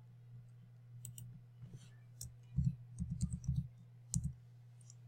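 Scattered clicks and taps of a computer keyboard and mouse, with a quick run of several taps about two and a half seconds in, over a low steady hum.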